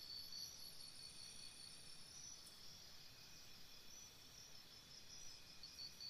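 Jungle-morning insect chorus: layered, steady high-pitched insect calls. One insect chirps in even pulses, about four or five a second, dropping out early and returning near the end, and a higher buzzing trill runs through the first two seconds or so.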